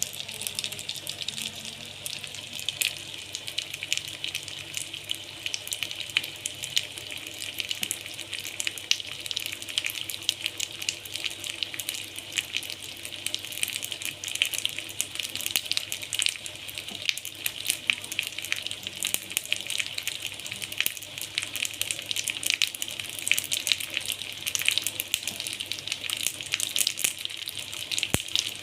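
Hot cooking oil sizzling steadily in a pan, a dense crackle of tiny pops, over a faint low hum.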